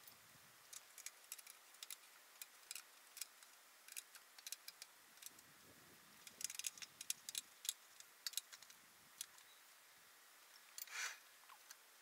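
Near quiet, with faint, irregular small clicks and ticks scattered throughout and a brief soft hiss near the end.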